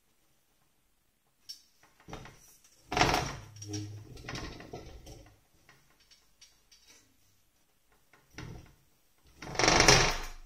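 Handling noise: a few bumps and rustles, loudest about three seconds in and again near the end, as the mannequin head wearing the wig is turned on its stand.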